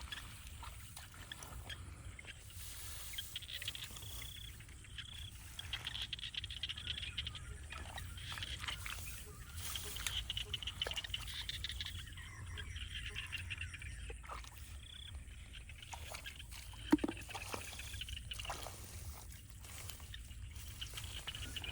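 Small animals calling in short repeated high trills, with faint trickling water, a low wind rumble and a single louder thump near the end.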